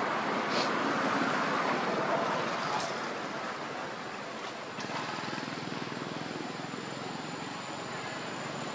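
Steady outdoor background noise, an even haze with no clear monkey calls standing out; a faint thin high tone comes in about halfway through.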